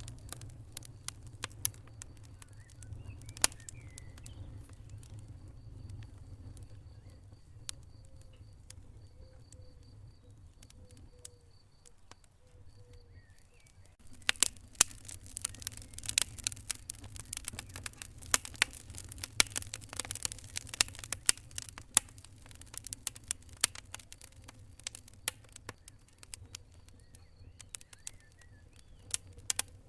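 Wood fire crackling: sharp snaps and pops over a low steady rumble, sparse at first and much denser from about halfway on.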